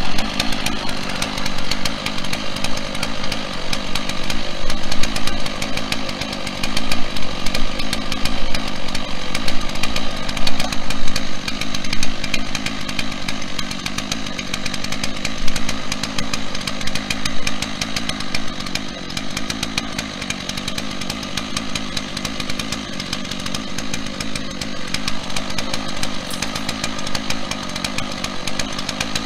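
Chainsaw running steadily at high speed on a Norwood PortaMill chainsaw mill, ripping lengthwise through a 10-inch pine log.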